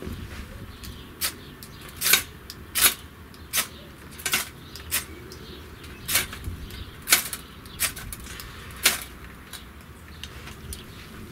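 About a dozen sharp, irregular snaps and clicks as small pieces of kindling are broken by hand and dropped into a Bushbox XL stainless-steel folding wood stove, the loudest about two to three seconds in.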